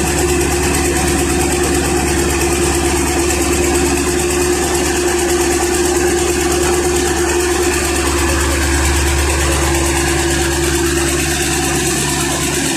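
Diesel engine of a B10M crawler tractor running steadily at idle while being run in during repair.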